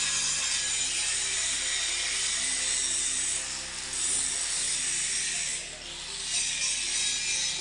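Handheld angle grinder grinding steel plate, a steady high grinding hiss that eases off briefly about two-thirds of the way through.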